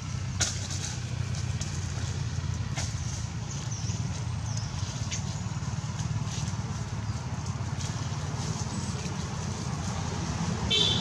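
A steady low rumble, like an engine running, under scattered rustles and clicks. Near the end, one of the long-tailed macaques gives a brief high squeal.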